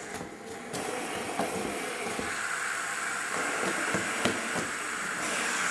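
Fidget spinners flicked into spin on a tabletop, their ball bearings giving a steady whirring hiss that builds up about a second in, with a few light clicks of fingers and spinners against the table.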